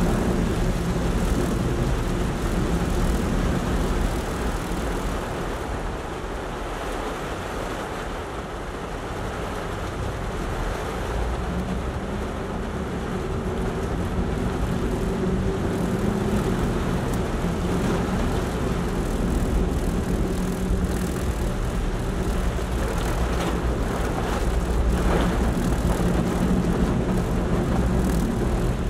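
Inside a car's cabin while driving in heavy rain: a steady hum of engine and wet-road tyre noise, with rain striking the windshield. The level eases slightly about eight seconds in and builds again.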